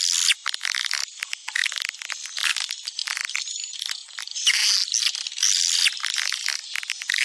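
Swiftlet lure-call recording: dense, high-pitched buzzy chattering and rattling trills, played to draw swiftlets to a nesting house.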